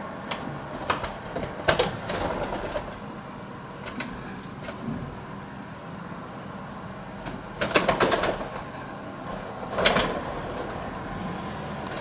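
Wood pigeons slapping each other with their wings in a territorial fight: sharp wing claps in short flurries, with the loudest flurry about eight seconds in and another near ten seconds.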